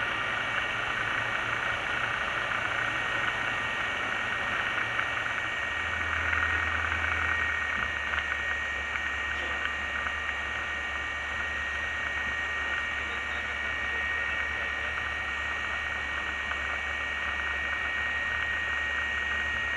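Diamond DA20 light aircraft's piston engine and propeller running at low taxi power, heard from inside the cabin as a steady drone. The low engine note changes slightly about six seconds in, then holds steady.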